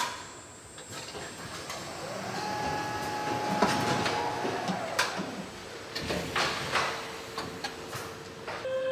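Car assembly-line machinery running. An electric whine rises to a steady tone about two seconds in and holds for a couple of seconds, then a lower steady tone carries on to the end, over a background of clanks and knocks.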